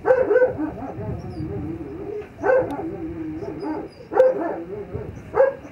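Dog barking during bite-roll training: four loud barks, each drawn out into a longer, wavering tone.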